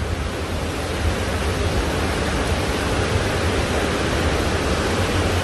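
Steady, unbroken rush of water with a heavy low rumble underneath.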